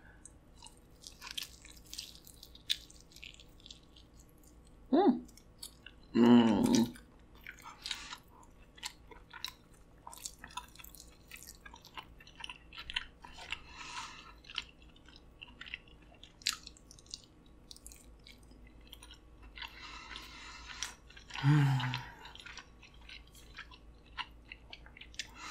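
Close-miked chewing of Hot Cheeto-crusted king crab in sauce: wet mouth sounds with many small sharp clicks and smacks, in irregular bursts.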